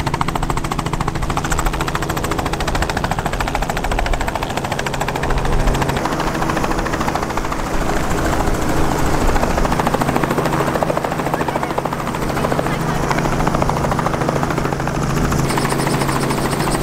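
Light two-bladed helicopter running on the ramp: a rapid, steady rotor chop over a low engine hum.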